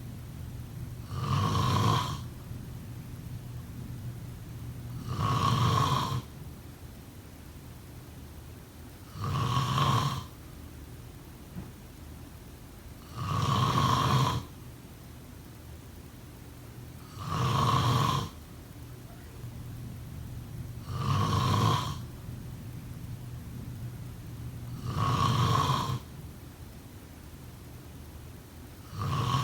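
A person snoring steadily: eight loud snores, each about a second long, one roughly every four seconds, with quieter breathing or room hum between them.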